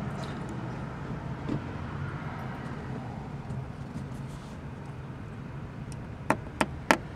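A steady low hum, then near the end three sharp taps about a third of a second apart: a pointed tool tapped against the windshield glass at the tip of a crack, to make a small bullseye that stops the crack from spreading.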